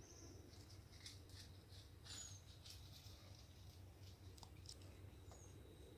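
Near silence: faint outdoor ambience with a few faint, short high chirps and light rustling.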